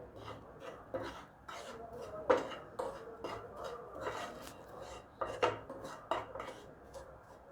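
Spoon scraping and clinking against a pan, stirring semolina (rulan) roasting in oil, with irregular strokes and a couple of louder knocks.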